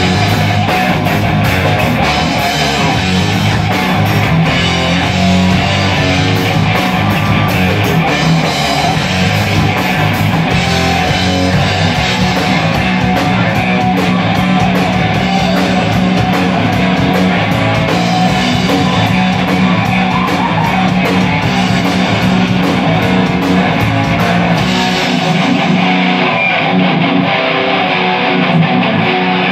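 Heavy metal band playing live: electric guitars, bass guitar and drum kit. About 25 seconds in, the deepest bass and the cymbal hiss fall away.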